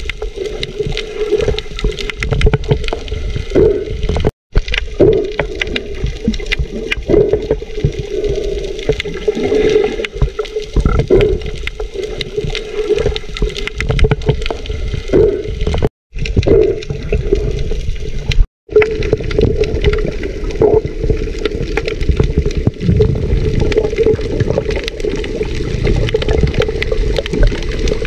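Muffled underwater sound from a camera in its waterproof housing: water rushing and bubbling as snorkelers kick and splash, over a steady low hum. The sound cuts out completely three times for a moment.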